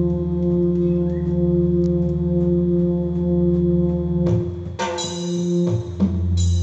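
Electronic keyboard played through an amplifier: a long held chord of steady tones over a low drone, then about four seconds in new chords are struck, several sharp attacks in a row.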